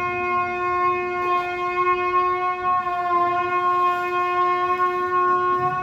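A shofar sounding one long, steady, held blast.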